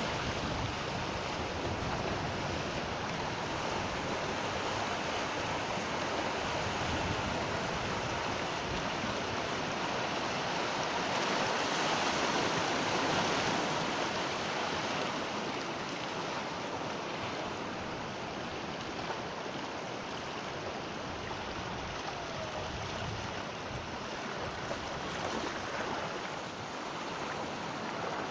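Sea waves washing and breaking on a shore, a steady rushing surf that swells a little near the middle and eases off again.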